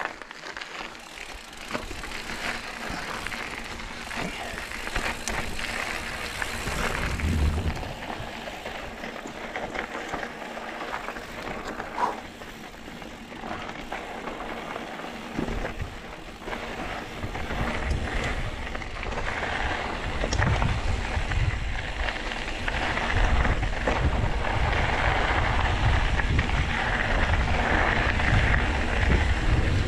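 Mountain bike riding over a rough dirt trail: a continuous rattle and rush of tyres and bike over the ground, with scattered clicks and knocks. A low rumble comes in about halfway through and grows louder.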